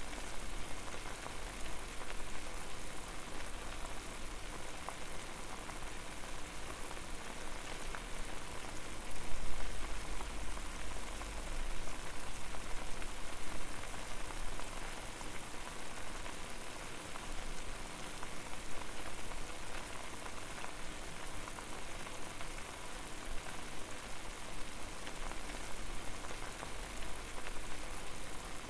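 Water boiling hard over a fire: a steady, dense bubbling crackle. A louder low rumble swells briefly about nine seconds in.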